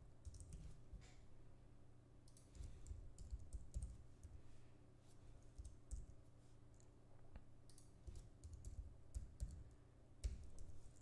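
Faint computer keyboard typing, short bursts of keystrokes with brief pauses between them.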